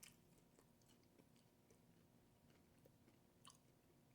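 Near silence with faint chewing: a few soft mouth clicks, the clearest about three and a half seconds in.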